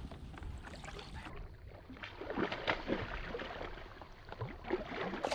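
Water splashing and trickling around a fishing kayak, with small knocks against the hull, as a hooked smallmouth bass is fought alongside.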